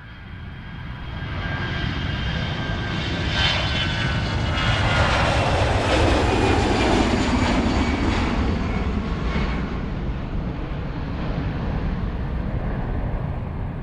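A jet airliner flying past. Its engine noise fades in and swells to its loudest mid-way, with a high whine that drops in pitch as it passes, then fades away.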